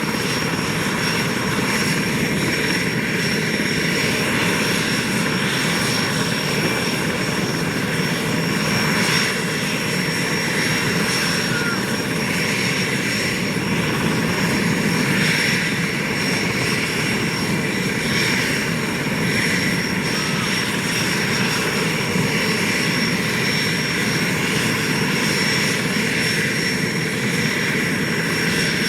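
Aérospatiale SA-330L Puma helicopter's twin turbine engines running steadily on the ground after start-up, with a constant high turbine whine over the rotor and engine noise.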